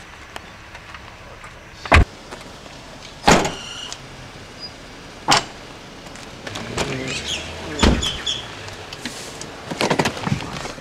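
Doors being opened and banged shut: four loud bangs a second or two apart, then a quick run of smaller clicks and knocks near the end.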